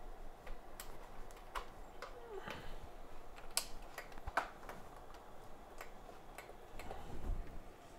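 Scattered light clicks and taps of tools and equipment being handled on an electronics repair bench, about a dozen at irregular intervals, with a brief faint squeak about two and a half seconds in.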